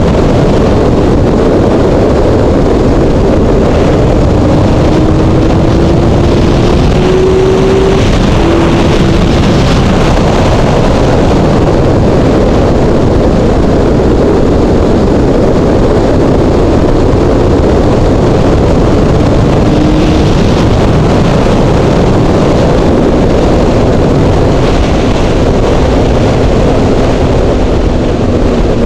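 Heavy wind rush on the microphone while riding a Honda CBR600 sport bike at speed, with the inline-four engine's note faintly audible underneath, rising as it accelerates a few seconds in and briefly again later.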